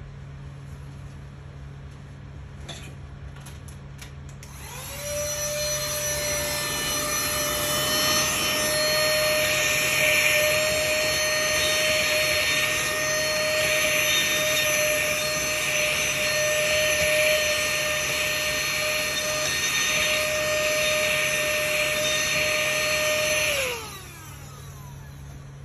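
Small handheld vacuum cleaner switched on about five seconds in: its motor spins up to a steady high whine over a loud rushing noise, runs evenly for about eighteen seconds, then winds down as it is switched off near the end. Two faint clicks come just before it starts.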